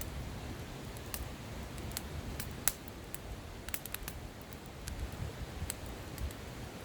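Campfire crackling: irregular sharp pops and snaps of varied loudness, with a steady low rumble underneath.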